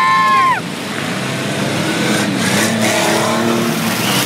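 Junk race cars' engines running and revving together on a dirt track. A loud, high held note ends about half a second in.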